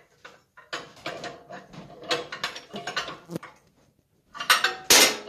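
Ratchet clicking in runs of short strokes as it turns the centre bolt of a steel flywheel puller on an old two-stroke snowmobile engine, with metal tool clatter. After a short pause, a louder burst of clicking and clatter comes near the end.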